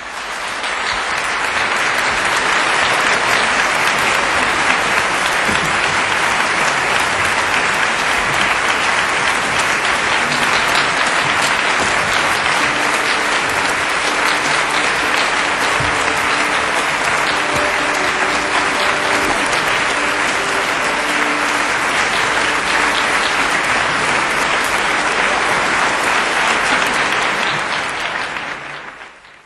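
Theatre audience applauding: dense, steady clapping that begins abruptly and fades out near the end.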